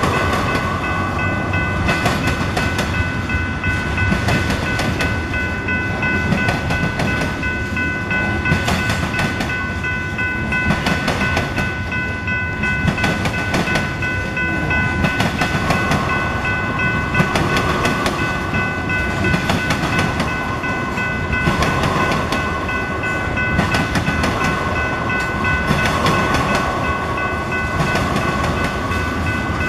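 Loaded tank cars of a long freight train rolling past close by, their wheels clattering and banging over a railroad diamond crossing in an irregular run of clicks over a steady rumble. A steady high-pitched whine of several tones sits above the clatter throughout.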